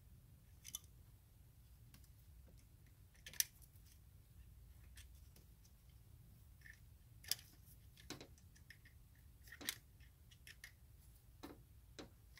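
Faint, irregular clicks and light taps of pliers and metal parts being handled in a car's engine bay. A few clicks are sharper than the rest.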